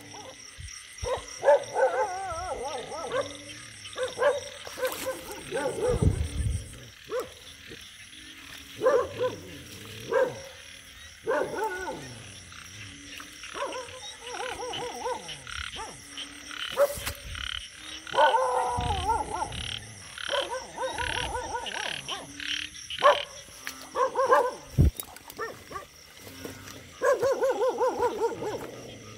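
A chorus of frogs calling after rain, many short croaking calls repeated in clusters, over a steady high trilling of insects. A dull thump comes about six seconds in, and another near the end.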